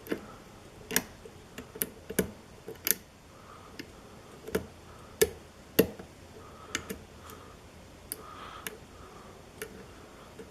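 Lock pick and tension wrench working the pins of a pin-tumbler lock during single-pin picking: irregular sharp clicks as pins are lifted and set, some with counter-rotation of the core from security pins. The loudest clicks come a little after five and six seconds in.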